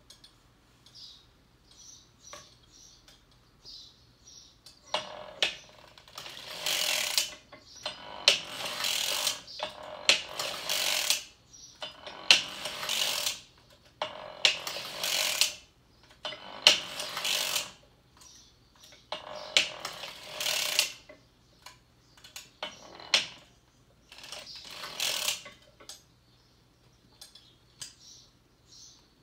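Circular sock machine being cranked back and forth, the cam carriage clattering over the latch needles in about ten short passes of a second or so each, with brief pauses between. These are short rows across the heel needles while the heel is knitted.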